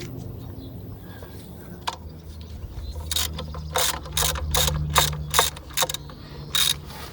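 Ratchet wrench clicking as it works the bolts on the mini excavator's bucket linkage during a bucket change: a run of about eight clicks, two or three a second, starting about three seconds in, with a couple more near the end, over a low steady hum.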